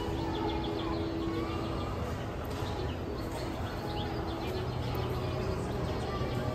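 Steady ambience of a large, echoing indoor mall atrium: a wash of distant crowd voices and hall noise, with short high-pitched chirps here and there.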